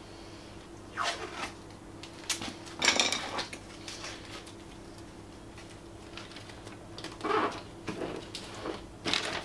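Paper template and masking tape rustling and crinkling as they are handled and pressed onto a vehicle's front guard: a few short bursts, the loudest about three seconds in. A faint steady hum runs underneath.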